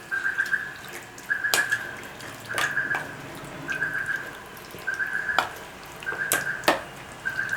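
Onions being stirred into marinated chicken in a bowl: about seven even mixing strokes, roughly one a second, each a short squeaky scrape of the utensil against the bowl, several ending in a sharp clink.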